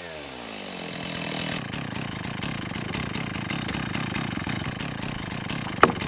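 Chainsaw on a Norwood PortaMill chainsaw mill, its engine falling in pitch as it comes off high revs in the first second, then running steadily. A single sharp knock near the end.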